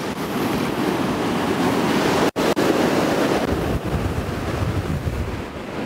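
Rough ocean surf breaking and washing up the beach, with wind buffeting the microphone; the sound drops out for an instant a little over two seconds in.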